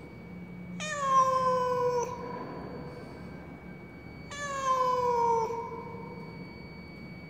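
Black-and-white cat meowing twice, two long drawn-out cries of a little over a second each, falling slightly in pitch. It is the mournful crying of a cat that the uploader takes to be lost.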